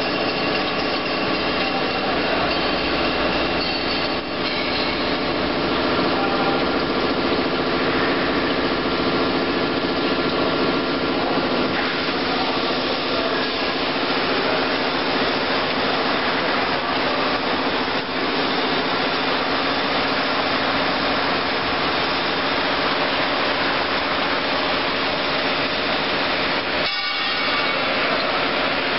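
Chain link fence weaving machine (LW25-80) running: a continuous mechanical noise with several steady whining tones, dipping briefly near the end.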